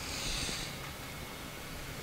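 A short hissing rustle of hands handling small parts, lasting about half a second near the start, over a steady background hiss.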